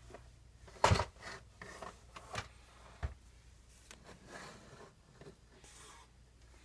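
A few light knocks and scrapes from moving about and handling things, the sharpest about a second in, then scattered softer clicks and rustling over a faint low hum.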